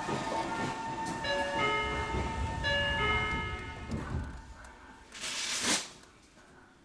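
A bell-like platform departure melody chiming, its held notes stepping between pitches, then fading after about four seconds. A brief, loud hiss follows about five seconds in.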